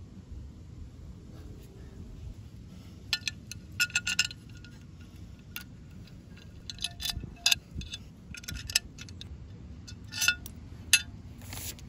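Chrome-plated metal air cleaner parts clinking and tapping against each other as they are handled, in several clusters of sharp clinks with a short ring, over a low steady background rumble.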